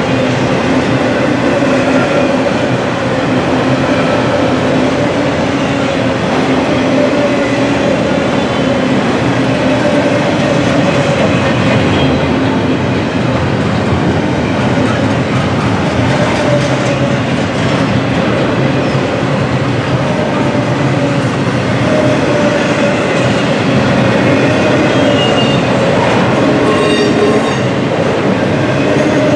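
Freight cars of a long auto rack and intermodal train rolling steadily past: a continuous rumble of steel wheels on rail with clickety-clack over the joints and thin wheel squeals, which rise higher for a moment near the end.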